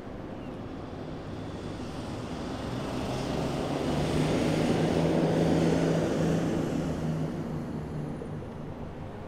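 A road vehicle driving past, its engine and tyre noise swelling to a peak about five seconds in, then fading away.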